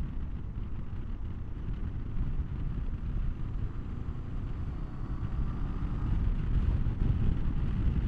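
2023 Honda SCL500 motorcycle's 471 cc parallel-twin engine running as the bike rides off, under a heavy low rumble of wind on the microphone. The sound grows louder over the last few seconds as the bike picks up speed.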